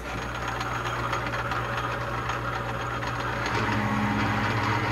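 Atlas 618 bench lathe running under power, a steady motor hum with a fast fine clatter from the drive; its note changes about three and a half seconds in.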